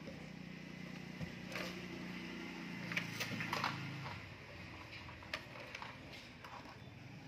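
Plastic toy vehicles handled on a wooden floor, giving scattered light clicks and knocks, over a steady low hum.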